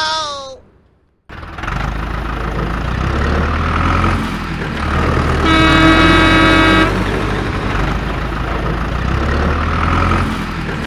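Vehicle engine sound effect running steadily with a low rumble, starting about a second in after a brief gap, with one horn honk lasting about a second and a half midway through.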